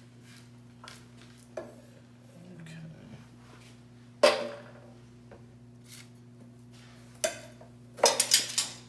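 Kitchen utensils knocking and clinking while a tomato held on a fork is cut with a knife on a wooden board, with a single sharp ringing clank about four seconds in and a quick run of clinks near the end. A steady low hum runs underneath.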